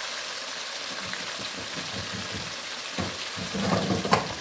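Pieces of steamed beef sizzling and crackling in hot oil in a karahi, being fried to crisp them. The sizzle swells near the end with a sharp click.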